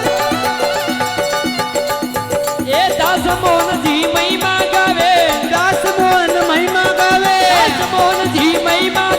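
Instrumental break in a Rajasthani folk devotional song: a steady, repeating accompaniment with percussion, joined about three seconds in by a melody line with bending, wavering notes.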